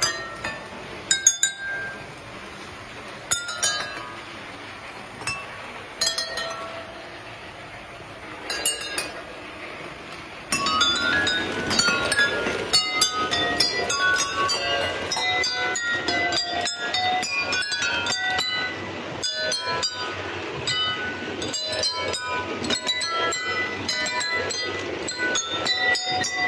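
Water-filled drinking glasses rung one after another by a striker on a passing model locomotive, playing a melody note by note. The notes are sparse at first; about ten seconds in they come faster, over a steady running noise from the train.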